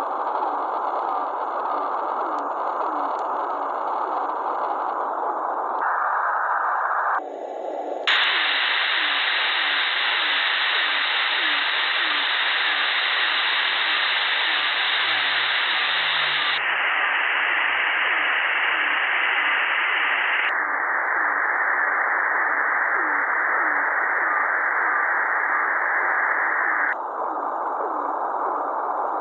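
Shortwave receiver tuned to 3510 kHz: a steady radio hiss with a faint, fast, regular crackle running through it. The hiss turns abruptly brighter or duller several times, as if the receiver's filter width were being switched.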